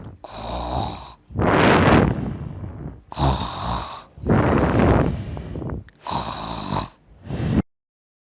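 A person snoring loudly in a run of about six long, rasping snores, each followed by a short gap. The snoring is acted out for a comedy skit. It cuts off abruptly near the end.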